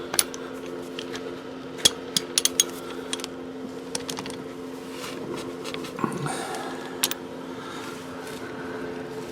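Scattered light metallic clicks and clinks of a hand tool working a car's front brake bolt, checking that it is tight, over a steady low hum.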